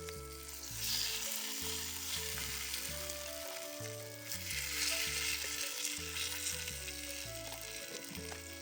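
Food sizzling and frying as it cooks over heat, the hiss swelling twice, over a background music track with a stepped bass line.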